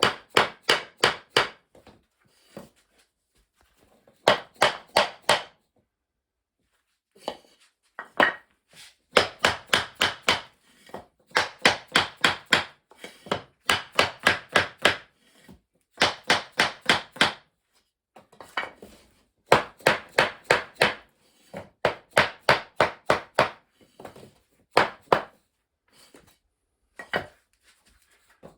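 Hammer blows on 2x2 ft compressed-wood sub-floor tiles as they are knocked into place, in quick bursts of four to seven strikes with short pauses between.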